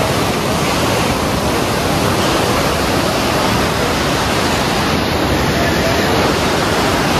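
Whitewater rapids of the Parvati River rushing over boulders: a loud, steady rush of water.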